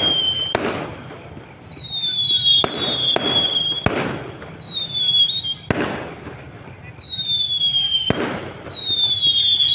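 Fireworks going off in repeated volleys: high whistles that slide down in pitch, each with sharp cracks, coming around every two to three seconds.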